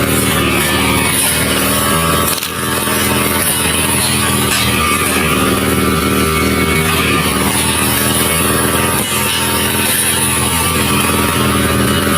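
Small petrol engine of a grass-cutting machine running steadily as it cuts grass, with a brief dip about two and a half seconds in.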